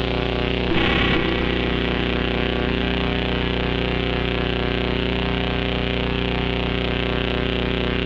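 Drone-noise jam on DIY square-wave synthesizers run through a multi-effects unit: a dense, steady, distorted buzzing drone of many held tones over a hiss, with a low tone pulsing a few times a second. About a second in, a short louder burst of noise flares up and falls back.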